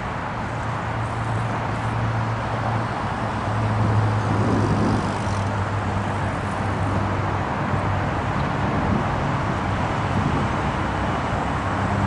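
Siemens Charger SC-44 diesel locomotive, a Cummins QSK95 engine, idling at the station with a steady low hum.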